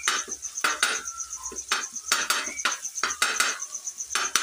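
Metal turner scraping and stirring masala on a tawa griddle in quick, repeated strokes, about three a second.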